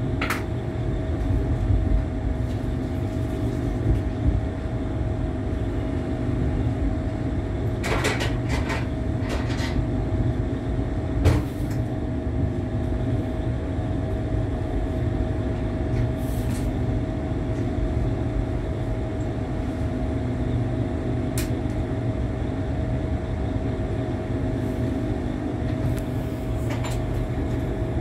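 Inside a passenger train carriage: a steady low rumble with a constant hum, and a few scattered clicks and knocks, a cluster of them about eight to ten seconds in.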